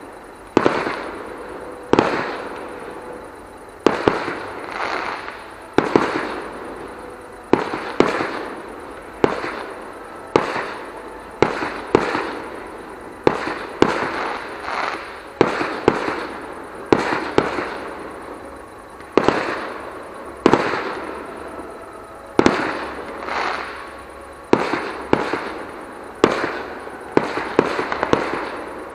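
Distant fireworks display: aerial shells bursting in a steady run, about one bang a second, each bang followed by a fading echo.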